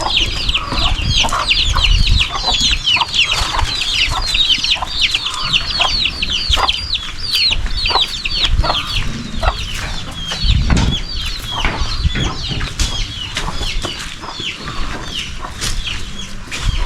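Chickens calling: a dense, continuous stream of short, high, falling peeps, thinning out toward the end, with some low knocks and rustling underneath.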